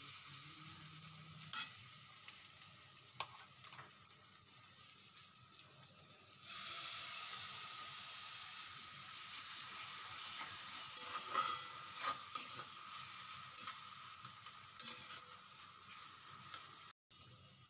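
Chopped onions and tomatoes sizzling in oil in a non-stick kadhai while a spatula stirs and scrapes the pan, with a few brief clicks. The sizzle gets louder about six and a half seconds in.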